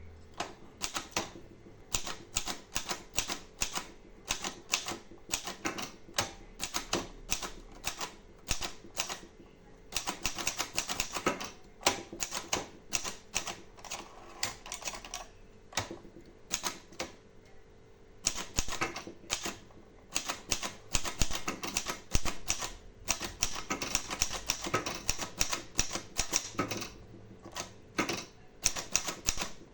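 Royal Royalite 120 manual portable typewriter being typed on: fast runs of key strikes with short pauses between them.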